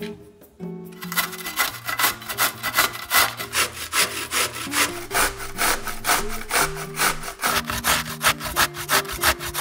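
Zucchini being grated on a stainless steel box grater: quick rasping strokes of the vegetable against the blades, about three a second, starting just under a second in. Soft background music runs underneath.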